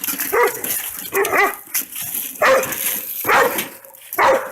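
A dog barking, about five barks roughly a second apart.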